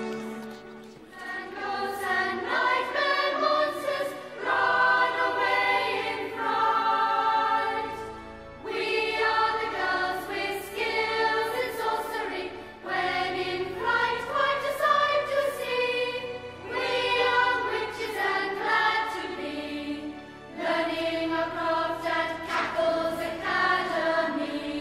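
Closing theme song over the end credits: voices singing together over instrumental backing, in phrases a few seconds long with short breaks between them.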